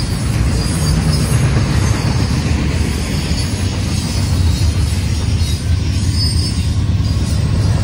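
Double-stack intermodal container cars rolling past on the rails: a steady, loud rumble of steel wheels on track, with faint high-pitched wheel squeals partway through.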